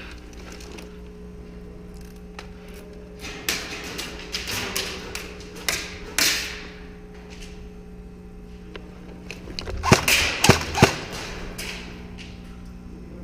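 Airsoft guns firing single shots, with BBs snapping against hard surfaces: scattered sharp cracks about four to six seconds in, then a quick cluster of three about ten seconds in, over a steady low hum.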